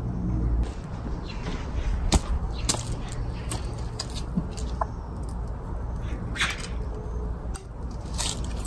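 Cat crunching dry treats: irregular sharp crackly clicks over a steady low rumble.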